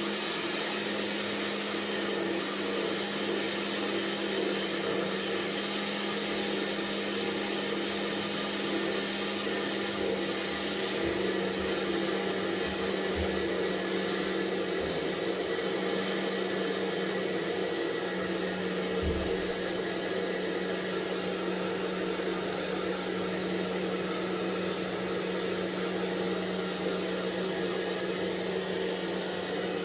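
Handheld hair dryer running steadily: a continuous rush of blown air over a steady motor hum, whose pitch shifts slightly about two-thirds of the way through. A brief low bump comes just after.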